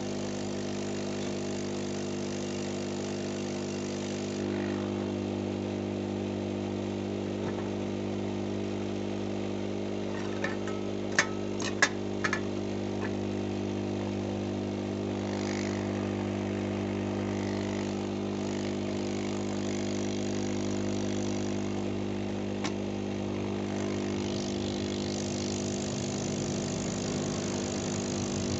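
Blower of a home-built hot-air soldering gun running steadily: a motor hum with the hiss of the air stream, the hiss dropping after about four seconds and rising again near the end. A few sharp clicks about eleven seconds in.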